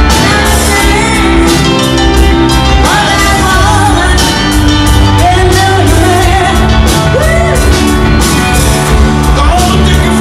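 Live rock band playing loud through a PA, with electric guitars, bass and a steady drum beat under a lead singer's voice.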